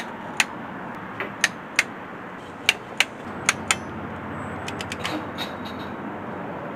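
Click-type torque wrench clicking as cam cap bolts are tightened: a string of sharp, irregular clicks over the first few seconds, then a cluster of lighter clicks.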